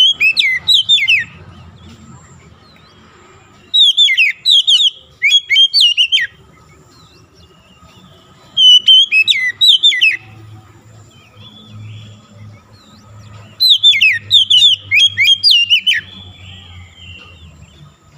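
Oriental magpie-robin singing four loud phrases of rapid, falling whistled notes, a few seconds apart.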